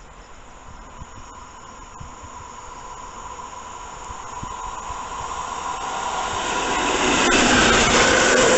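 A train approaching on the line, its noise growing steadily louder over several seconds, with a few steady whining tones coming in during the second half.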